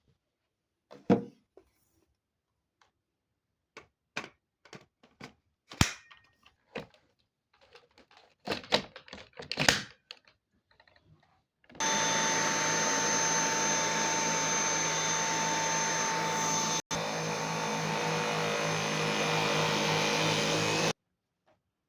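A series of separate clicks and knocks, then a Dyson V8 Advanced cordless stick vacuum running for about nine seconds with a steady high whine over its motor noise, broken once for a split second, before it cuts off suddenly.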